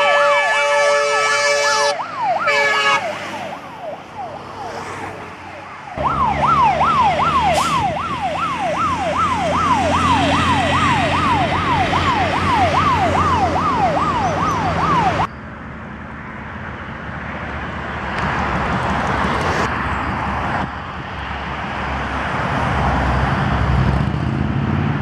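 Fire engine sirens wailing in a fast rise-and-fall, about two and a half sweeps a second, over a truck engine's rumble, with a steady chord of horn-like tones at the start. The siren cuts off suddenly about fifteen seconds in, and the noise of passing road traffic swells afterwards.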